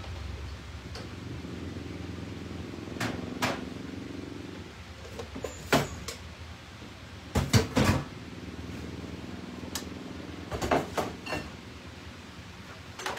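Kitchen clatter: irregular knocks and clinks of dishes and utensils being handled and set down, the loudest a quick cluster of knocks about halfway through, over a low steady hum.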